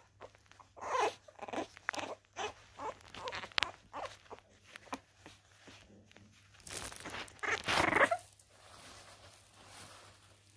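French bulldog puppies playing and scuffling, with a string of short puppy noises, and a louder scuffling rustle about seven to eight seconds in.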